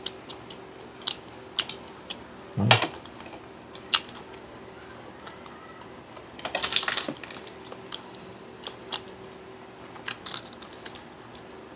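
Eating sounds at a meal of rice: chewing and scattered small clicks of cutlery on a plate, with a short crunchy cluster about seven seconds in. A brief low 'hmm' comes near three seconds.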